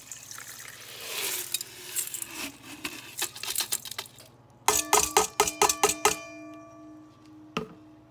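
Wet crushed glass frit and water pouring out of a plastic Nutribullet blender cup into a stainless steel steamer-basket colander, splashing and grains rattling on the metal. About four and a half seconds in comes a quick run of taps of the cup against the basket, which rings like metal.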